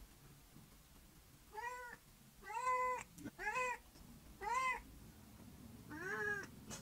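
Domestic cat meowing five times, each meow a short call that rises and falls in pitch.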